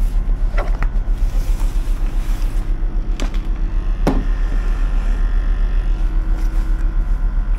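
Ship's machinery running, a steady low hum with an even throb. A few knocks and rustles come from a backpack being rummaged and a plastic toolbox being lifted out; the loudest knock is about four seconds in.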